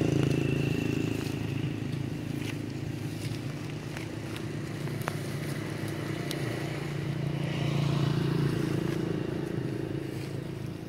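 A steady engine hum, swelling about eight seconds in, with a few faint ticks over it.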